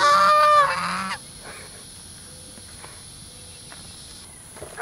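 A white domestic goose gives one loud honk lasting about a second, the pitch held and then dropping, at the start. After it come only a few faint, short calls.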